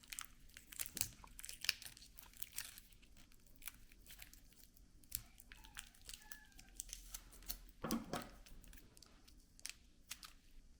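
Plastic wrapping being handled and pulled tight around a LiPo battery pack, crinkling and crackling in short irregular bursts, with a fuller rustle about eight seconds in.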